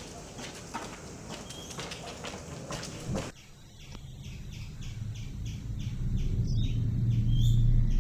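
Footsteps in sandals on a concrete path, with birds chirping. About three seconds in, the sound changes abruptly to a steady high ticking pulse, about three a second, over a low hum that swells toward the end.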